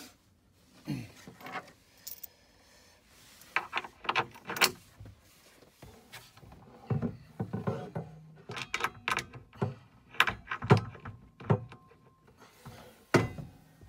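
Irregular knocks, clicks and light metal clatter of bolts, washers and wing nuts being handled and set into a fixing hole in a panel, with hands bumping against the panel.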